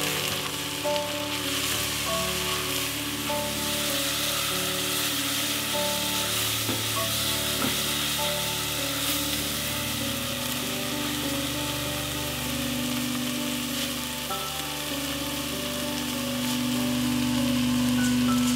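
Chopped onions and bell peppers with strained tomatoes and spices sizzling steadily in a hot pot while a spoon stirs them.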